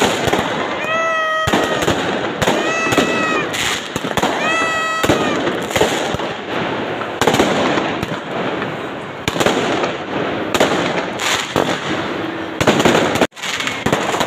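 Fireworks going off overhead: dense, irregular bangs and crackling throughout, with three short high hoots in the first five seconds and a brief dropout in the sound near the end.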